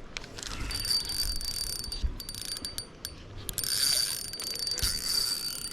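Fishing reel whirring in two long runs, each about two seconds, with a steady high whine, as it works against a hooked freshwater drum.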